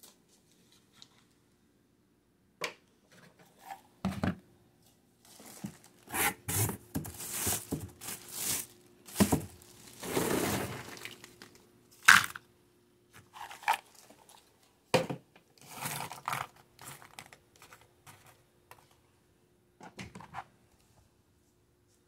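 Hands tearing and crinkling something dry, in irregular bursts with a few sharp knocks, over a faint steady hum.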